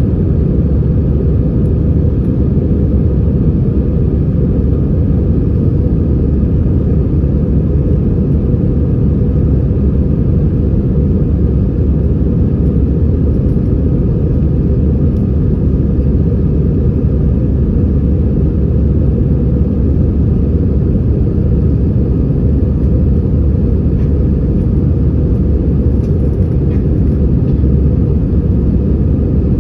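Steady, even roar of an Airbus A320-214 in flight, heard inside the passenger cabin: engine and airflow noise, mostly low-pitched and unchanging.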